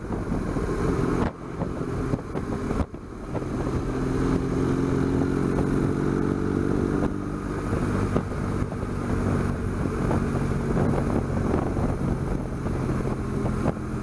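BMW R1200GS boxer-twin engine running as the bike is ridden along. The engine sound dips sharply twice in the first three seconds, then runs on steadily.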